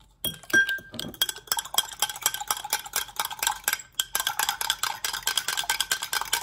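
Rapid, steady clinking of a utensil against a dish, as food is stirred or mixed.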